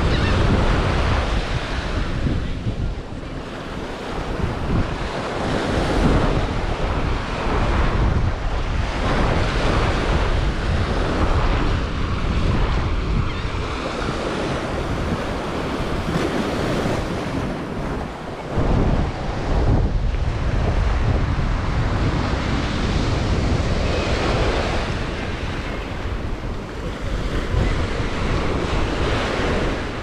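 Gulf of Mexico surf washing onto the beach, with wind buffeting the camera microphone in a gusty low rumble.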